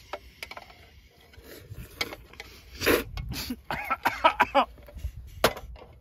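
Wooden chopsticks clicking and scraping against a metal cooking pot while eating, in scattered sharp knocks. A few short vocal sounds come about halfway through.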